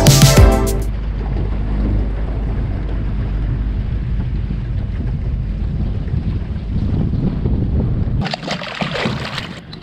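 Background music ends in the first second. Then comes the steady rush of a small boat moving across a lake: wind on the microphone and water along the hull. A little after eight seconds the low rumble drops away, leaving a brighter hiss.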